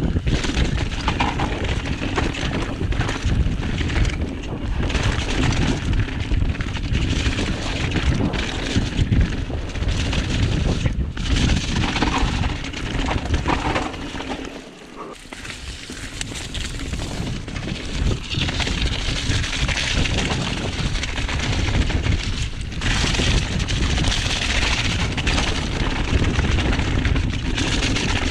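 Mountain bike ride heard from a chest-mounted action camera: wind buffeting the microphone and tyres rumbling over dirt and stones, with frequent knocks and rattles from the bike over bumps. The noise drops briefly about halfway through, then builds again.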